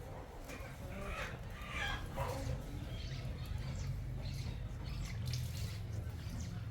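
Chickens clucking, with several short calls in the first few seconds and fainter ones after, over a steady low rumble.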